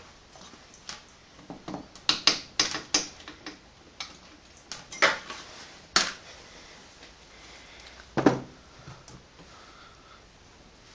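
Irregular clicks and knocks of hand tools and metal engine parts being handled: a quick cluster of clicks about two seconds in, then single louder knocks around five, six and eight seconds in.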